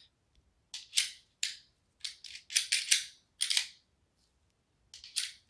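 A series of sharp metallic clicks and short rattles from a Taurus G2C pistol being handled, in clusters through the first few seconds and once more near the end.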